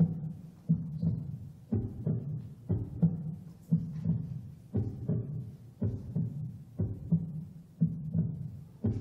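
Music score built on a low, heartbeat-like pulse: a double thump about once a second, in a steady, even rhythm.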